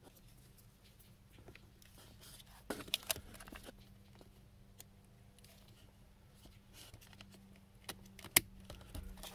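Light clicks and knocks of hard plastic being handled as a new blower motor is plugged in and fitted up into its housing under a car's dash, with a cluster of knocks about three seconds in and a sharp click a little after eight seconds. A faint steady low hum runs underneath.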